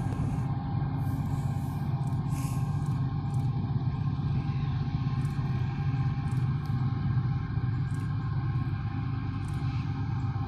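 Norfolk Southern diesel-electric freight locomotives approaching with a steady low engine rumble and a faint steady whine above it.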